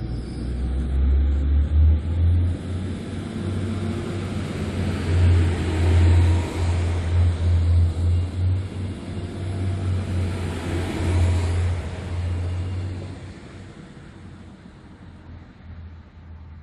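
Trenord ATR 125 diesel multiple unit pulling away from a station: its diesel engine runs hard under load with a strong low hum and rumbling wheel noise as it accelerates past. The sound fades about thirteen seconds in as the train draws away.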